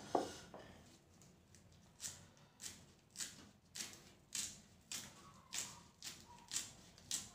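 Kitchen knife slicing culantro leaves on a round wooden chopping block: a steady series of short chops, about three every two seconds, starting about two seconds in.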